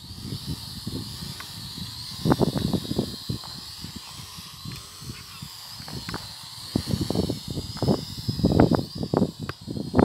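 Small quadcopter drone's propellers giving a steady high-pitched whine that wavers in pitch, under loud irregular gusts of wind buffeting the microphone.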